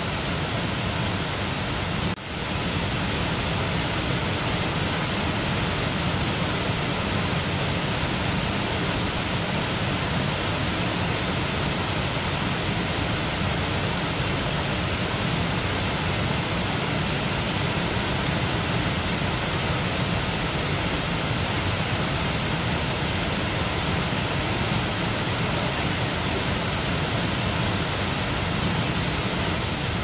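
Steady, dense rush of falling water: a waterfall of about 20 metres plunging into a rocky pool, with a brief dip in the sound about two seconds in.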